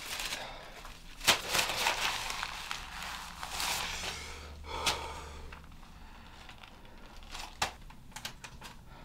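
Paper being handled: rustling and crinkling, broken by several sharp knocks, the loudest about a second in, thinning out to scattered clicks in the second half.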